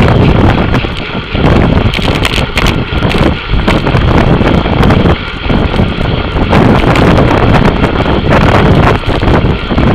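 Wind buffeting the microphone of a camera riding on a racing bicycle at speed: a loud, uneven rushing that surges and dips every second or so.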